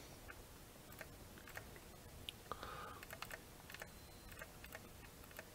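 Faint, irregular clicks of keys being pressed on a computer as a calculation is entered.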